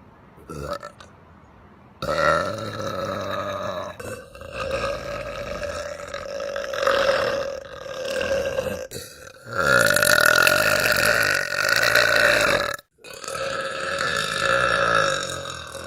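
A woman burping: a run of long, drawn-out burps one after another from about two seconds in, with a sudden break near the end before a final long burp.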